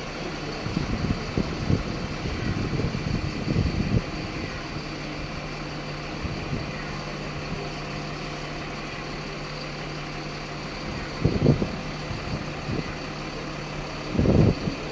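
Fire engine's diesel engine running steadily at idle while its aerial ladder is raised, with a few short, louder low rumbles in the first few seconds, about two-thirds of the way in, and near the end.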